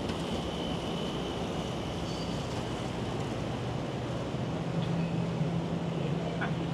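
Steady running noise of a vehicle in motion, with a constant low hum.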